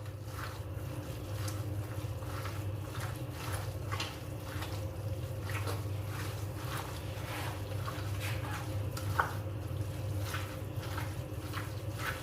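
Minced meat being mixed with its yoghurt, lemon-juice and spice marinade in a bowl: irregular wet squelching strokes over a steady low hum.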